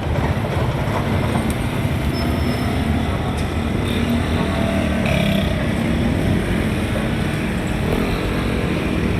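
Road traffic: vehicle engines running, with a steady rumble and no breaks.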